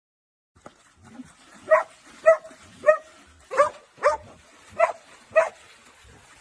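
A dog barking repeatedly: seven short barks at a steady pace, a little over half a second apart, starting a couple of seconds in.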